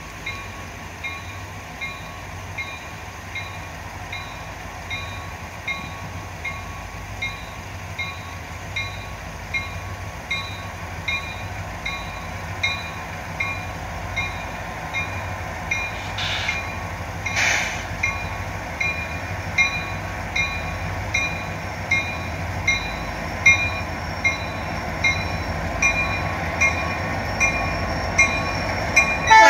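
Montana Rail Link diesel locomotives approaching, their low engine rumble growing steadily louder. A warning bell rings steadily through it, about three strikes every two seconds.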